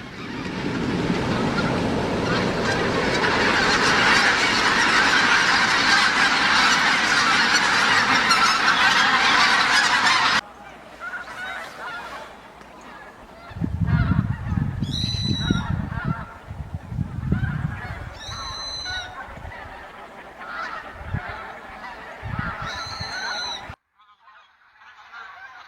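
Wild geese honking: first a loud, dense din of many birds calling at once, then, after a sudden cut, a quieter stretch with scattered honks and three clear high-pitched calls a few seconds apart, over a low rumbling noise.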